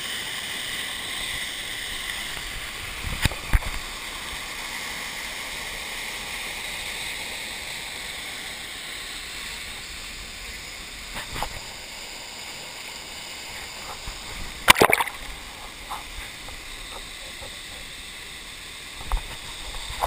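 Steady rushing hiss of a small waterfall and the stream below it, with a few short knocks and splashes, the loudest about fifteen seconds in.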